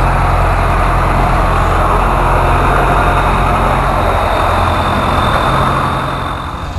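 Engine of a small excursion train with open red cars running steadily: a low, constant-pitched hum under a wash of mechanical noise. It gets a little quieter near the end.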